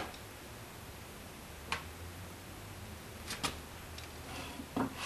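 A few isolated light clicks and taps over a faint low hum, two of them close together past the middle. A louder knock comes near the end.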